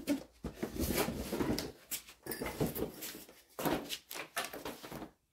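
Irregular rustling and scraping with light knocks, from hand work on parts in the engine bay.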